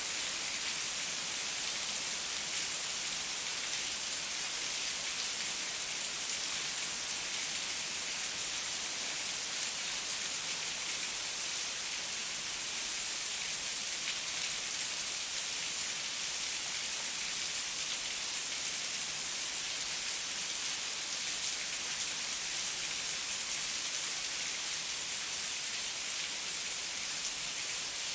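Heavy rain falling steadily: a dense, even hiss with fine patter of drops.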